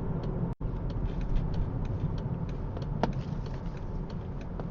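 Car cabin while driving: steady low engine and road rumble, with a faint regular ticking at about three to four ticks a second. The sound cuts out completely for an instant about half a second in.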